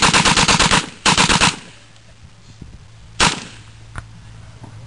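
Machine gun firing on full automatic at about ten shots a second: a burst that stops just under a second in, a short second burst right after, then a single shot about three seconds in.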